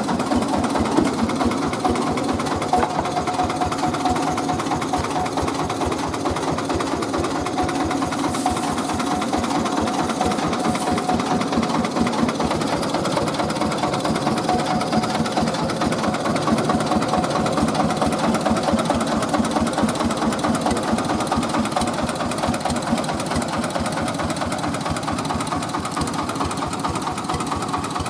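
Mobile rice-milling machine running steadily, its engine giving a fast, even mechanical beat throughout.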